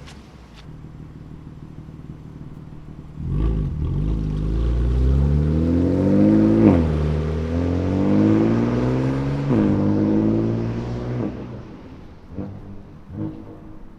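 BMW S55 twin-turbo inline-six in an F80 M3, through a titanium equal-length, single-midpipe valved exhaust, pulling hard under acceleration. It runs steadily low at first, then comes on loudly about three seconds in, and its note climbs through the gears with two quick drops in pitch at the upshifts. It then eases off and fades near the end.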